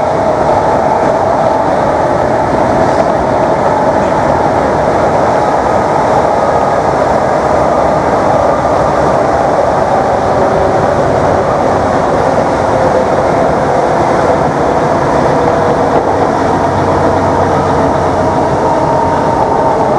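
Class 321/4 electric multiple unit's DC traction motors whining in several steady tones over loud, even running noise and wheel rumble.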